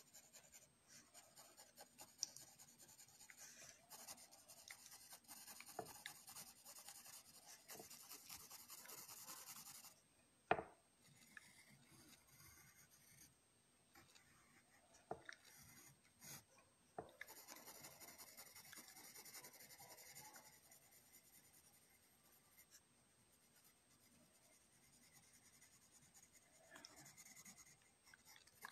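Graphite pencil scratching across paper in quick shading strokes, faint, in runs broken by pauses. A single sharp tap stands out about ten seconds in.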